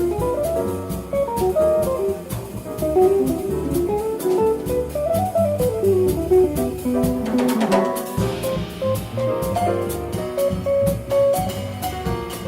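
Live jazz quintet playing: a fast single-note solo line over bass, drum kit and cymbals.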